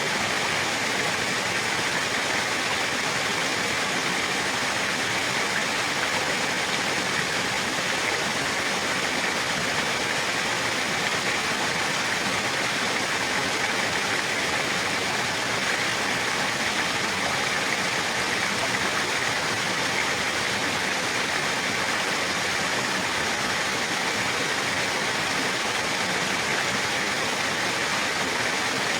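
Running water rushing steadily, an even hiss with no separate splashes or drops.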